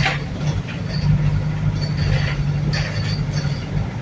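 Wright New Bus for London heard from inside while on the move: a steady low engine drone, with short high ticks recurring over it.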